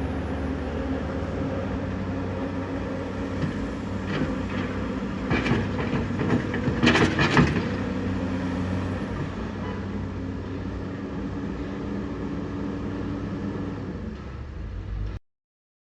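Komatsu 210LC excavator's diesel engine running steadily, with a cluster of clanks and rattles from the working bucket about four to seven seconds in. The sound cuts off suddenly near the end.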